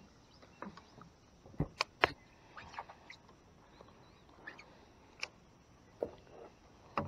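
Scattered light knocks and clicks of fishing gear and paddle handled aboard a small kayak, the sharpest pair about two seconds in.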